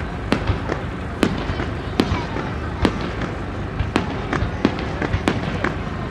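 Aerial fireworks bursting, sharp bangs at uneven intervals of roughly two a second over a steady low rumble.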